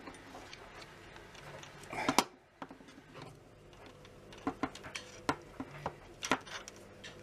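Metal clicks and clinks of steel nails and slip-joint pliers being handled against a brass valve cap. A louder clatter comes about two seconds in, and scattered clicks follow.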